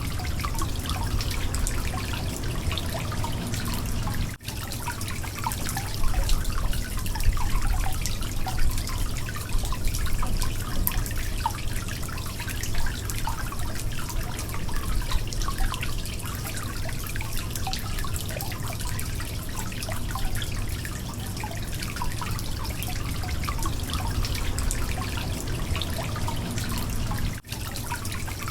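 Water leaking: many rapid, irregular drips and trickling over a steady low rumble, with two brief dropouts, one about four seconds in and one near the end.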